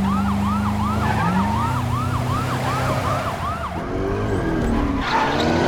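Police car siren on a fast yelp, rising and falling about three times a second, over the drone of car engines. Near the end the siren drops away and the engines rise in pitch and grow louder as the cars accelerate.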